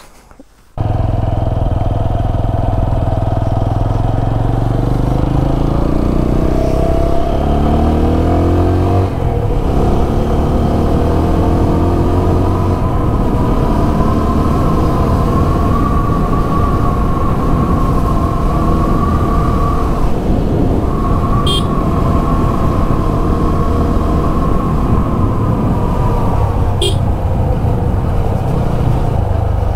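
TVS Apache 200 motorcycle running under way, its engine note climbing as it accelerates a few seconds in, then holding steady at cruising speed.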